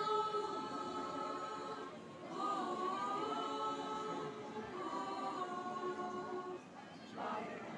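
School choir singing unaccompanied in parts, holding long notes with short breaks between phrases, around two seconds in and near the end.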